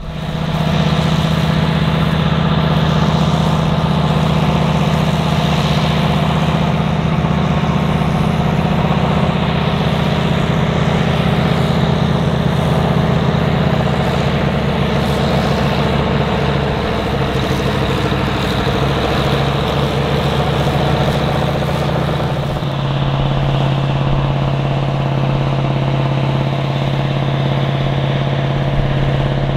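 Big articulated four-wheel-drive farm tractors ploughing, their large diesel engines running steadily under load while pulling reversible ploughs. About three-quarters of the way through the engine note changes to a second tractor, a Ford FW-60.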